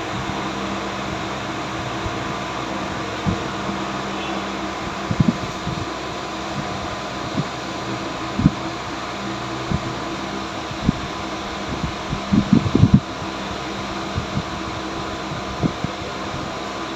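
Steady whir of a fan running, with scattered clinks and knocks of engine parts and tools being handled as the intake is refitted, a quick cluster of them near the end.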